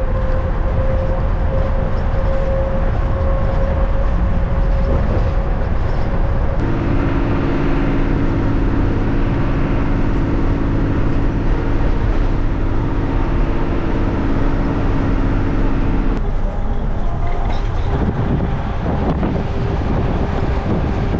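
Non-AC coach bus driving at speed, heard from inside: steady engine and road noise, with a steady drone that comes in about seven seconds in and stops about sixteen seconds in.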